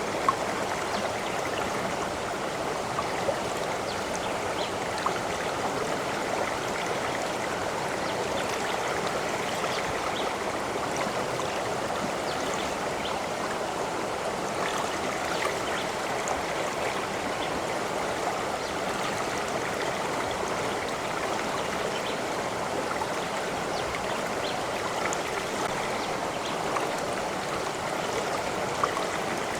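A flowing stream babbling steadily, with small splashes and drips here and there.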